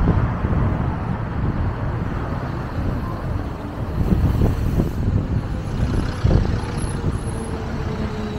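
City street traffic noise heard from a moving bicycle: a continuous low rumble of passing cars and road noise with irregular bumps. A faint whine falls slightly in pitch over the last couple of seconds.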